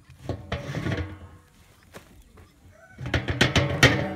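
Large metal lid being shifted on the rim of a big cooking pot, scraping and clanking, metal on metal. There is a short run of knocks about a second in and a louder run of scrapes and clanks near the end.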